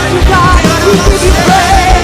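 A live worship band playing loudly, with held chords and a steady beat.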